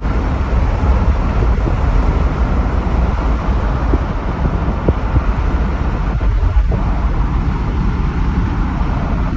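Steady wind and road noise of a car driving along a road, heard from inside the car, with a heavy low rumble.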